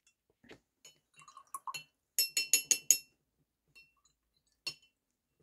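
Paintbrush rinsed in a glass jar of water, knocking against the glass between colours: a quick run of about five ringing clinks about two seconds in, with softer taps before it and one more clink near the end.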